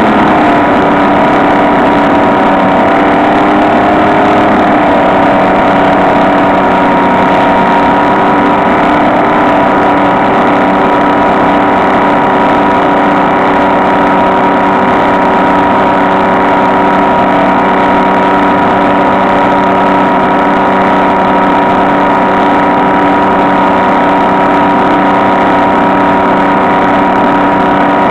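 Electric motor and propeller of a HobbyKing SkyEye RC plane running steadily at cruise, a constant droning whine; its pitch settles slightly lower over the first few seconds and then holds.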